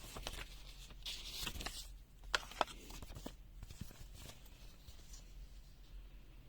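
Handling noise: rustling with a scatter of sharp clicks, the two loudest close together about two and a half seconds in, then quieter.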